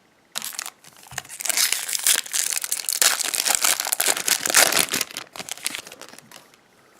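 Foil wrapper of a baseball card pack crinkling and tearing as it is opened, loudest in the middle and dying away near the end.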